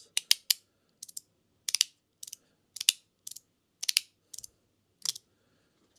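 A 3D-printed stainless-steel-composite magnetic fidget slider (mini Nutrino) being played with: its free-floating pieces snap together with sharp clicks, about a dozen at an uneven pace of roughly two a second.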